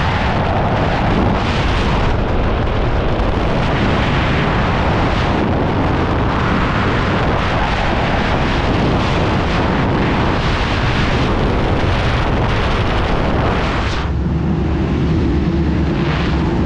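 Freefall airflow blasting over a skydiver's helmet-camera microphone: a loud, steady rush of wind. About 14 seconds in, the hiss drops away and a steadier low hum takes over.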